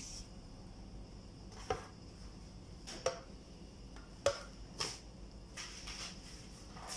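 A few light knocks and clinks of kitchenware being handled: a black roasting pan of roast chicken and a bowl set down and touched on a table, four short sharp sounds spread over several seconds above a faint steady background noise.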